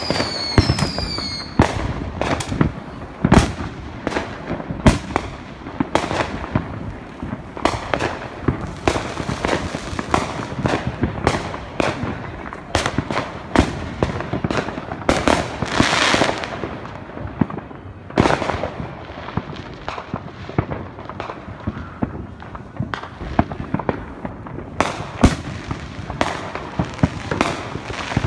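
Fireworks and firecrackers going off without a break: many sharp bangs and pops in quick succession. A falling whistle sounds at the very start, and a hissing rush about sixteen seconds in.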